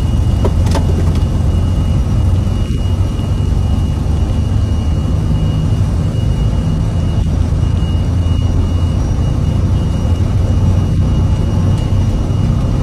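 Jet airliner engines running steadily: a loud, even rumble with a thin high whine held over it.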